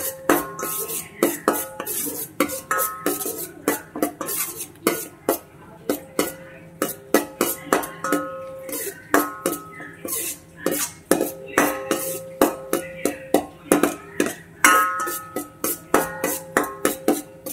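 Steel ladle clinking and scraping against a stainless steel kadai while stirring cashews frying in ghee. Several sharp metallic clinks a second, each with a short ring from the pan.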